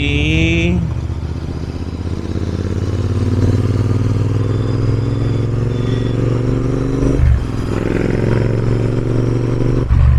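Royal Enfield Interceptor 650's parallel-twin engine pulling under way, its revs rising slowly. About seven seconds in the revs drop briefly, as at a gear change, then it pulls steadily again.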